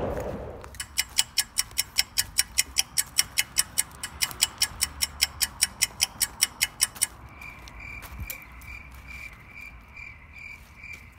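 Insects calling: a fast, even ticking about four times a second that stops abruptly about seven seconds in, followed by a steady pulsing high chirp.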